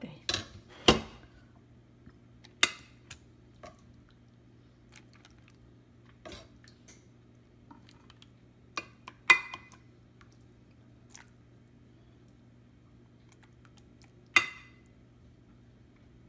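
Plastic serving spoon knocking against a glass baking dish and a skillet while meat sauce is spooned onto lasagna noodles: scattered sharp knocks and clinks, a few of them loud, over a faint steady hum.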